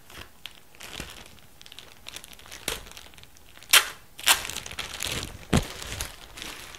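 Clear plastic bag holding T-shirts crinkling and rustling as it is handled and pulled open, with several sharp, louder crackles of the plastic about four to six seconds in.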